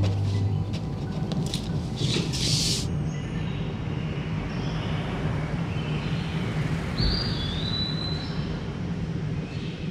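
Steady low ambient rumble, like distant traffic, with a short hiss about two seconds in and a brief high chirp about seven seconds in.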